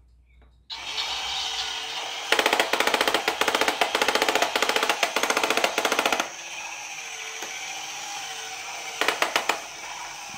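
Haynes build-your-own internal combustion engine model, its small battery-powered electric motor starting up with a whir about a second in as it turns the crankshaft and pistons. A loud, rapid clattering from the gear train runs for about four seconds and returns briefly near the end: the sign of a fault, which the owner thinks is a split pinion gear.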